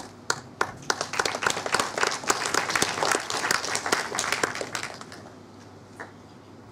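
Audience applauding: a few scattered claps grow into steady applause, which dies away about five seconds in.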